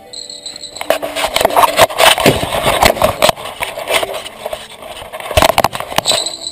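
Close handling noise: irregular knocks, clatter and rustling as the action camera is grabbed and carried along the bank, over a steady high tone.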